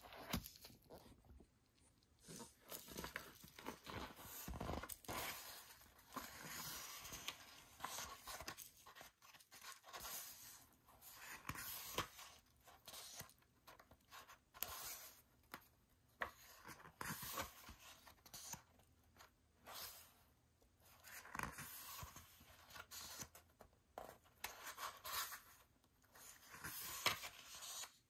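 Pages of a glossy photobook being turned and handled: irregular soft paper swishes and rustles with a few sharper flicks.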